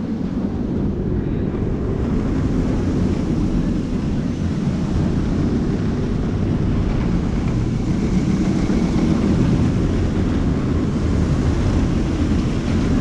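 Roller coaster train running along its steel track: a steady rumble that swells gradually, loudest about nine to ten seconds in.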